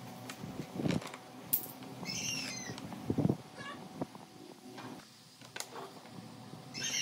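Short, high-pitched animal calls: one about two seconds in and another at the very end, among scattered knocks and a dull thump about three seconds in.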